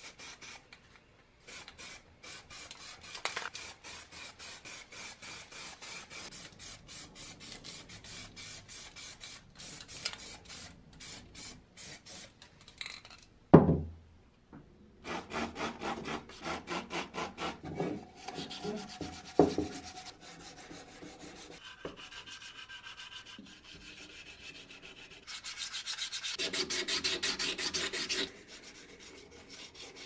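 Hand wet-sanding of primed metal coffee grinder parts: quick, rhythmic back-and-forth rubbing strokes in several stretches. There is one loud knock about halfway through.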